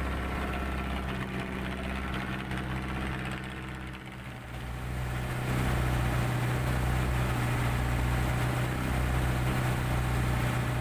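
Small fishing boat's engine running steadily while towing a trawl net, a constant low hum with water and wind noise over it. It gets louder about halfway through.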